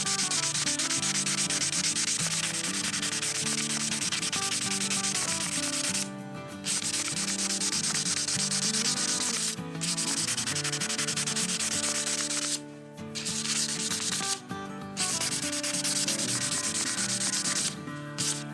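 A dry rubbing noise in long stretches, breaking off briefly four or five times, over background music.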